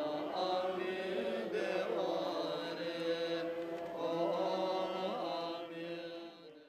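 A group of voices chanting a Buddhist mantra together in long, sustained tones, fading out near the end.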